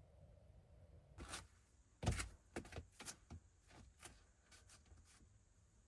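A series of small knocks and clicks from objects being handled and set down, irregularly spaced, the loudest a knock about two seconds in.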